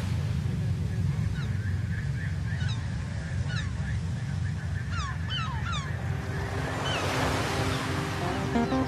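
A flock of gulls calling: a run of short squawks, each falling in pitch, in the first two thirds, over a steady rumble of surf and wind on the microphone. A wave washes in about seven seconds in, and music starts right at the end.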